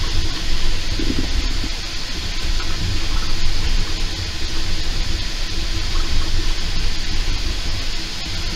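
Steady rushing fan noise from 3D printers running, with no clicks or changes.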